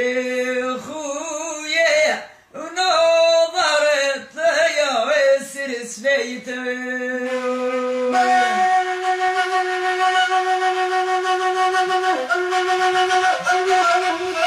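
A woman singing a Salhi melody with wavering, ornamented pitch; about eight seconds in, the gasba, a long end-blown flute, takes over with breathy, long-held notes.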